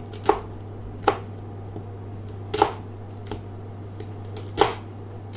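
A cooking utensil jabbing and breaking up cakes of Maggi instant noodles in a metal pot of water, giving four sharp knocks against the pot, over a steady low hum.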